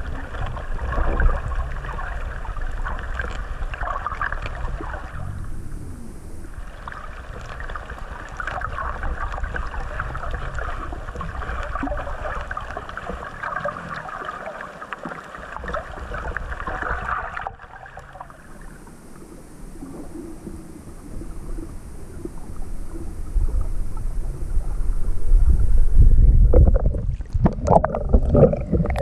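A sea turtle cropping sea grass underwater, making a dense crackling, crunching sound in two long runs with a short break between them. It goes quieter for several seconds, then near the end a loud low sloshing of water comes in.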